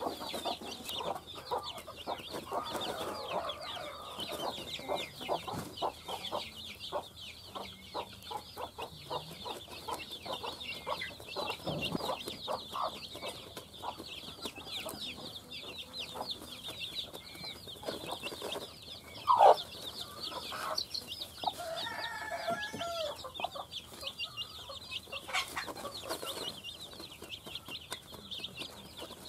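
Chicks peeping in a continuous high-pitched chorus while the mother hen clucks in short low calls as they feed together. One louder hen call stands out about twenty seconds in.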